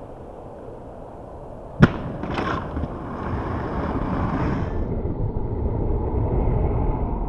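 Aggressive inline skates landing hard on pavement, a single sharp slap just under two seconds in, then the skates' hard wheels rolling on rough asphalt with a steady rolling noise.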